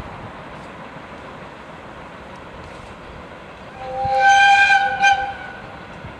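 Deki 302, a Chichibu Railway electric locomotive hauling a freight train, runs with a steady rolling noise and sounds its horn about four seconds in. The blast lasts about a second and a half and ends with a short second toot.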